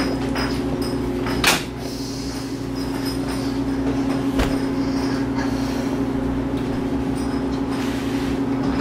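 A steady machine hum, as from a household appliance running, with one sharp click about a second and a half in and a fainter tap later.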